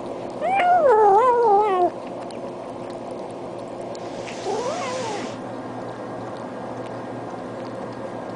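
Domestic cat meowing: one long, loud meow that wavers up and down in pitch about half a second in, then a shorter, fainter meow that rises and falls about four and a half seconds in. A steady low hum runs underneath.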